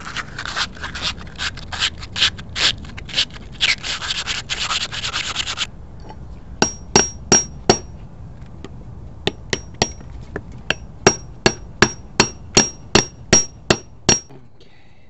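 Metal sleeve being worked into the rubber bushing of a shock absorber eye: a scraping, rubbing stretch with knocks, then after a short pause a quick series of hammer taps on the metal, each with a brief high ring, driving the sleeve into the bushing.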